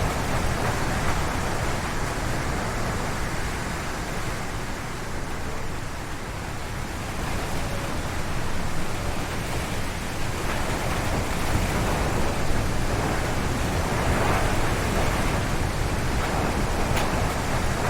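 Strong wind gusting through forest trees, a continuous rushing noise that swells and eases in waves, with stronger surges a little past the middle and near the end.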